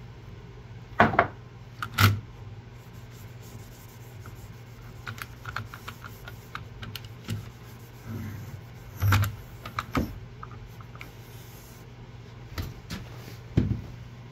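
Knocks and clacks of a steel-bar parallel clamp with plastic jaws being handled and set down on a wooden workbench: sharp knocks about one and two seconds in, lighter ticks and rattles in the middle, then more knocks around nine and ten seconds and near the end. A steady low hum runs underneath.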